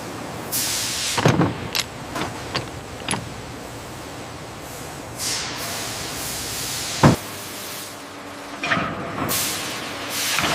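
Hissing sweeps that fall away, three in all, with sharp knocks and clicks between them; the loudest knocks come about a second in and about seven seconds in, over a steady background hum.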